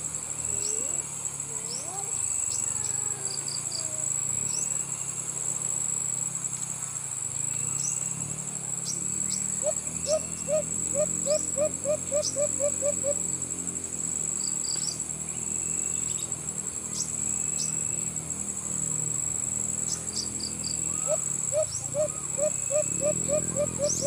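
Insects keep up a steady high shrilling, with short high bird chirps scattered through it. Twice, about ten seconds in and again near the end, a white-eared brown dove gives a run of about a dozen quick, low hooting notes, the loudest sound here.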